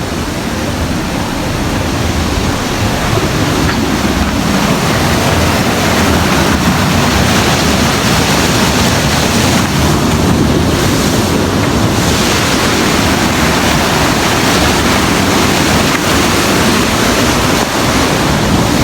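Waterfall's water rushing, a loud, steady noise, with some wind buffeting the microphone.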